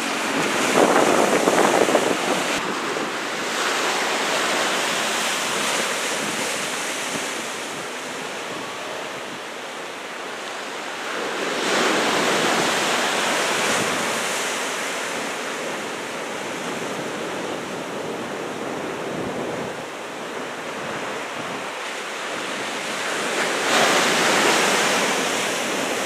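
Ocean surf from a typhoon swell, waves breaking and washing, swelling louder three times about twelve seconds apart.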